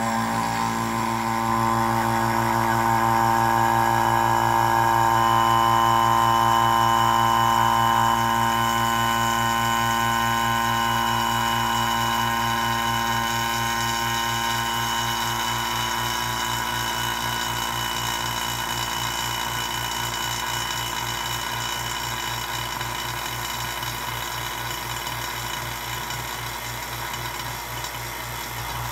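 Vacuum pump switched on and running steadily, pumping down the vacuum system: a steady mechanical hum with a fast regular throb and several steady tones, swelling slightly in the first seconds and then slowly getting quieter.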